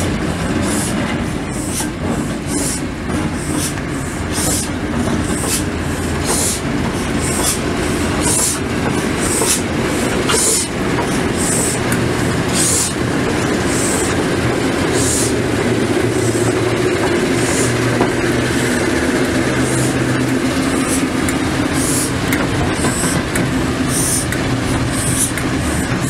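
Diesel shunting locomotive's engine running steadily as it rolls slowly past at close range. A regular high-pitched tick or squeak sounds about every two-thirds of a second as it moves.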